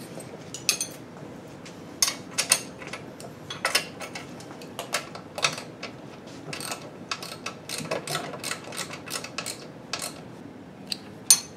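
Socket ratchet clicking in short, irregular runs as the motor mount bolts are snugged down, with a few sharper metal ticks between.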